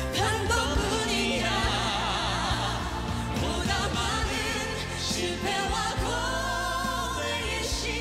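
A man and women singing a Korean ballad together, voices wavering with vibrato, over live backing music.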